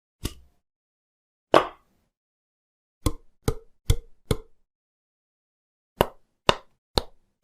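Sharp tool taps on dead silence, in the style of stop-motion sound effects: two single knocks, the second heavier, then four quick taps, then three more about half a second apart.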